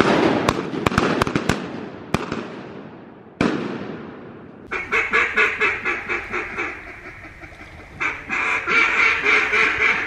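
Shotgun shots ringing out and echoing through the timber: a volley of several quick shots at the start that dies away over a couple of seconds, then a single shot about a third of the way in. After that come two runs of rapid, loud duck quacks, about five a second, the second starting shortly after halfway.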